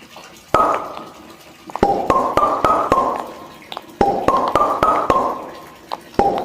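Background music: a short, repeating phrase of bright, plucked or struck notes over a clicky beat, starting over about every two seconds.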